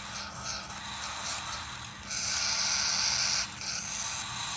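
Cockatiel chicks giving raspy, hissing feeding calls while being fed from a syringe, loudest for about a second and a half in the middle.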